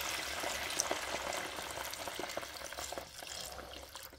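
Water poured into a pot of hard-seared beef bones and vegetables, sizzling and crackling as it hits the hot pot, the sizzle gradually dying down as the pot is deglazed.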